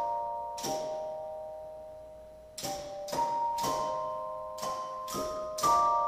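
Solenoid-driven automatic player striking tuned chimes, playing a slow tune of bell-like chords. Each strike is a clean metallic note that rings on and fades slowly. There is a pause of about two seconds after the first two strikes, then a quicker run of chords.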